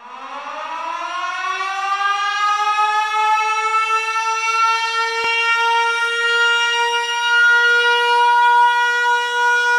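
A siren winding up: its pitch rises over the first few seconds, then holds steady.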